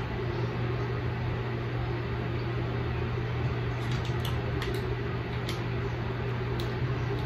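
Steady low mechanical hum with room noise, with a few faint short clicks in the second half.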